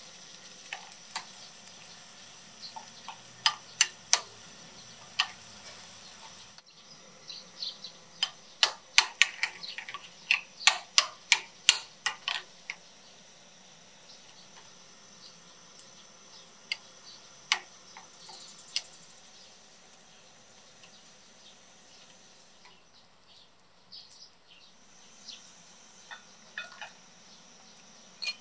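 Metal spoon clinking and scraping against a glass bowl while stirring a thick paste. The clinks are short and sharp and come in scattered runs, most rapidly in a burst partway through, over a faint steady background hiss.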